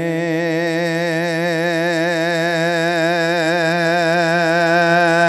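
A Buddhist monk's voice singing Isan-style lae sermon chant, holding one long sung note on the word 'บัดนี้' ('now'), wavering slightly in pitch.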